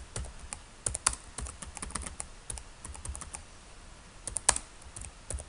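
Typing on a computer keyboard: a run of irregular key clicks, with a short pause a little past the middle and one louder keystroke near the end.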